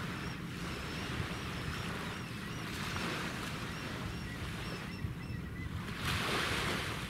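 Supply ship Towada's engines running as a low, steady rumble while she passes, under a hiss of wind and water that swells about six seconds in.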